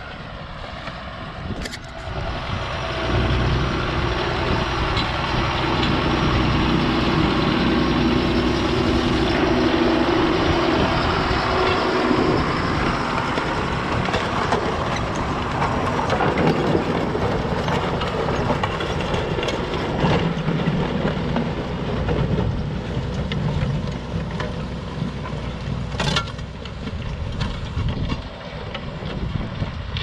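John Deere 6930 tractor's six-cylinder diesel engine pulling hard as it ploughs, with a steady drone. It grows louder about three seconds in as the tractor and plough come close, then eases somewhat near the end.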